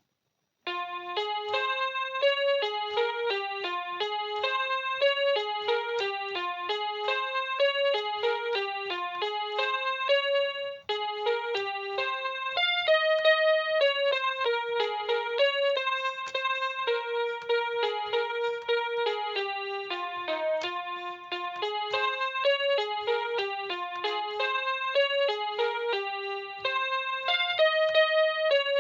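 Electronic keyboard playing a melody in a piano voice, one note after another in a steady flowing line. It starts about a second in and pauses briefly near the middle.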